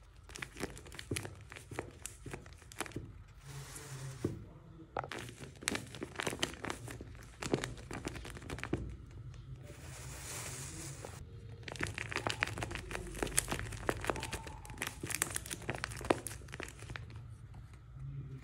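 Taped paper squishies crinkling and crackling as they are squeezed and handled, an irregular run of small crackles and clicks, with a softer rustle about ten seconds in.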